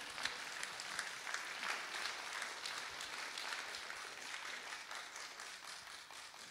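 Audience applauding, dense clapping that gradually dies down toward the end.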